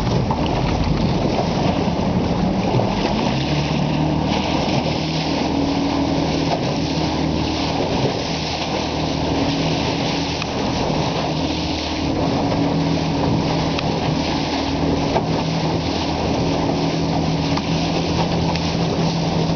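A boat under way: its engine running with a steady hum that stands out from about three seconds in, over water rushing and splashing at the bow and wind on the microphone.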